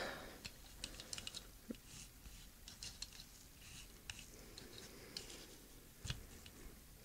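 Faint handling noises of a metal-bodied diecast toy car being held and moved by hand: small scattered clicks and rubs, with one soft knock about six seconds in.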